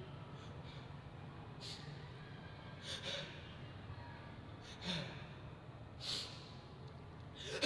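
A person's faint, short breathy gasps, four of them a second or more apart: the catching breaths of someone building up to a sneeze.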